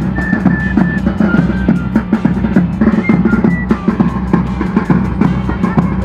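Music: a quick, steady drum beat under a high melody line that steps from note to note.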